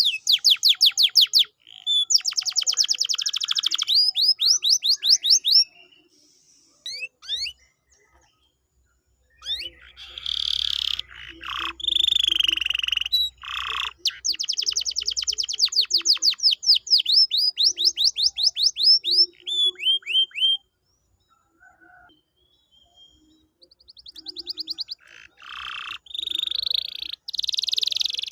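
Domestic canary singing: long phrases of rapid trills, each built from fast repeated sweeping notes, breaking off twice for a few seconds.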